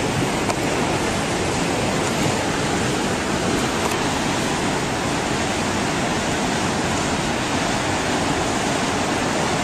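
Steady rushing noise, even and unbroken, spread from low rumble to high hiss.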